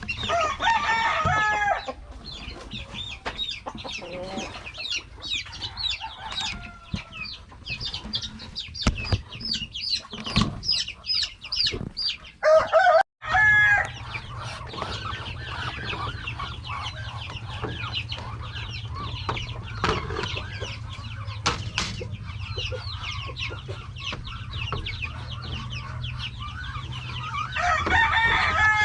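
Chickens clucking and chicks peeping in a busy chorus of short, repeated calls, with louder calls near the start and around the middle.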